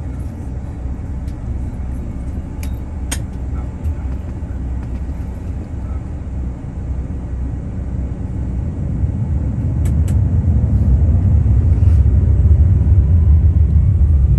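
Cabin noise of a CRJ-700 regional jet taxiing: a steady low rumble from its rear-mounted turbofan engines and the wheels on the pavement. It grows louder and heavier about nine seconds in, and a faint rising whine comes in near the end. A few brief clicks are heard, around three and ten seconds.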